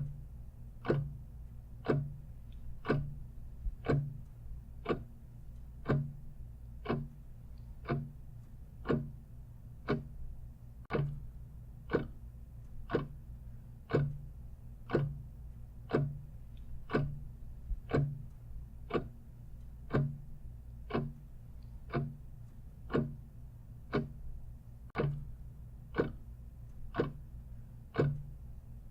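Clock ticking steadily, one tick a second, over a low steady hum.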